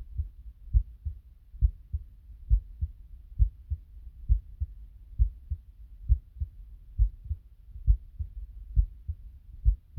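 Human heartbeat picked up by a phone's microphone: a steady, even rhythm of double thumps, a strong beat followed by a softer one, a little faster than one beat a second.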